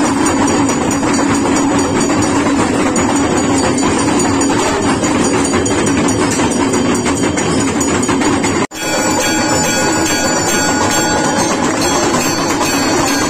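Loud, continuous clanging of temple bells during an aarti, with the large hanging brass bell struck over and over. About nine seconds in, the sound cuts out for an instant and comes back more evenly rhythmic, with ringing tones.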